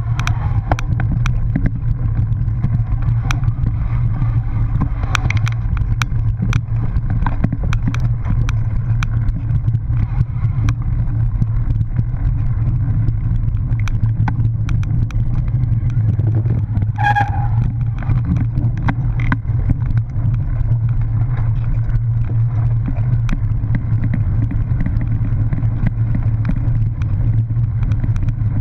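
Cyclocross bike ridden over bumpy grass, heard from a camera on the rider: a steady low rumble with frequent clicks and rattles. One brief high-pitched squeal sounds about two-thirds of the way through.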